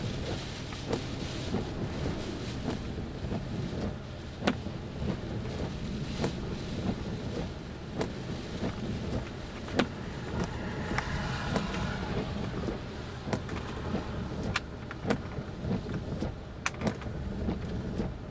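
Steady low rumble inside a car cabin, with scattered sharp taps of rain striking the windshield and body. A windshield wiper swishes across the wet glass about ten seconds in.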